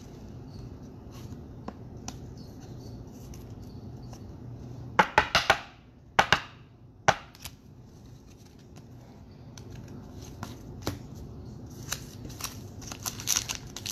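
Trading-card pack wrapper being handled and torn open, with a quick run of crinkling crackles about five seconds in, a couple of single snaps after it, and more crinkling near the end over a faint steady hum.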